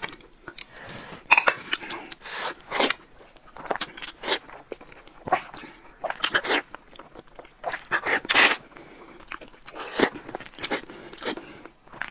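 Close-miked eating sounds: irregular short crackles, clicks and smacks from chewing and from boiled eggs being cracked and peeled.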